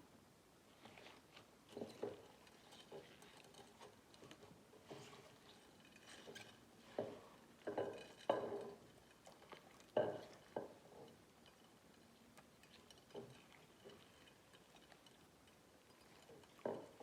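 Slime being squished and worked by hand: irregular soft squelches and sticky clicks, the loudest about eight and ten seconds in.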